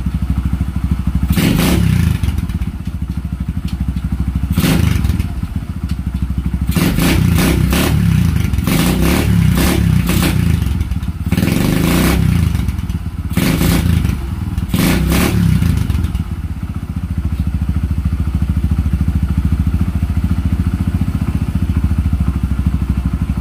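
Kawasaki Barako 175's single-cylinder four-stroke engine running, revved with the throttle in short bursts several times, then settling to a steady idle for the last several seconds. The owner says its worn carburetor no longer keeps the running steady.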